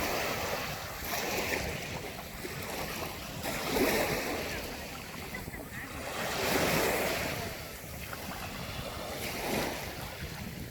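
Sea waves breaking and washing ashore, swelling and fading about every three seconds, with wind noise on the microphone.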